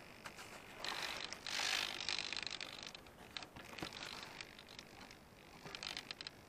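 Rustling, crackling and small clicks and creaks as the foam RC plane is handled and moved through tall grass. The loudest stretch of rustling comes about one to three seconds in, followed by scattered clicks.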